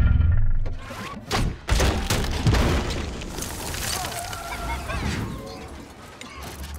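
Film battle sound effects: a heavy explosion boom at the start that dies away within half a second, then several sharp crashes and shattering of debris between about one and three seconds in, settling into a lower rumble.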